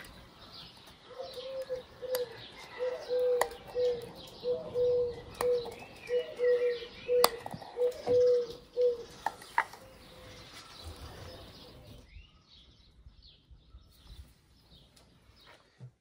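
Outdoor birdsong: a bird repeats a low hooting note two or three times a second for several seconds, over fainter chirping of small birds, with a few sharp clicks mixed in.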